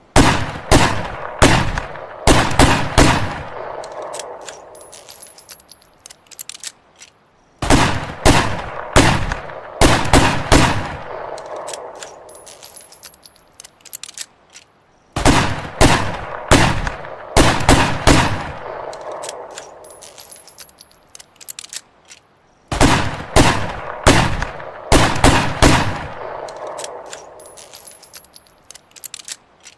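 Ruger Redhawk revolver firing about six shots in quick succession, each with a long echoing tail, the same string of shots repeated four times.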